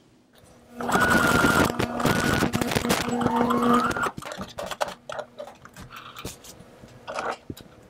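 Brother electric sewing machine stitching a seam through upholstery-weight canvas for about three seconds, its motor whine climbing in pitch just before it stops. Then come soft fabric rustles and small clicks as the piece is drawn out from under the presser foot.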